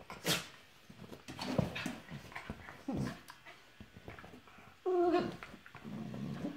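Two small dogs play-fighting: scattered short snaps and mouth noises, with one short, high dog whine about five seconds in.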